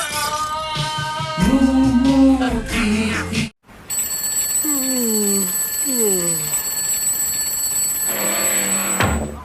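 Edited music with sound effects: a pitched tune that cuts off abruptly about three and a half seconds in, followed by steady high ringing tones with two falling pitch swoops.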